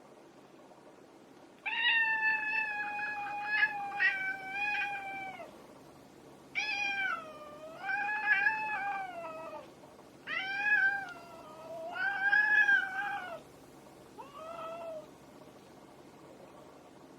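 A cat yowling during a squabble with another cat: four drawn-out, wavering calls, the first long and fairly steady in pitch, the last short and faint.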